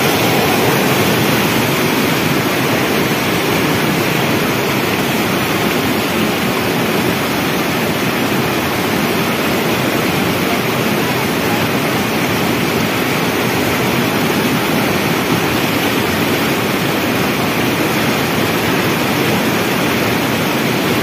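Swollen, fast-flowing muddy stream in flood after heavy rain, rushing over rocks close by. A loud, steady rushing that does not let up.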